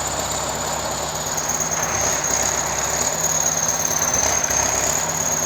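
Motor vehicle engine running steadily, with a thin, steady high-pitched whine over it.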